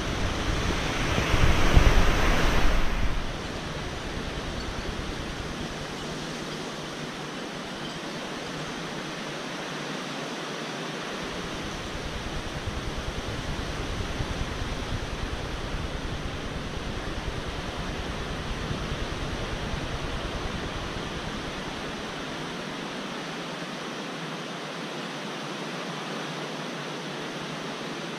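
Steady rushing wind noise outdoors, with a heavier gust buffeting the microphone in the first three seconds.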